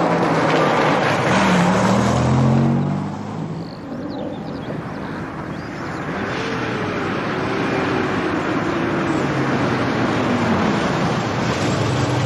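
A Ford Capri's engine running as the car drives up, its pitch rising about a second in and then rising and falling. The engine settles into a steady idle near the end.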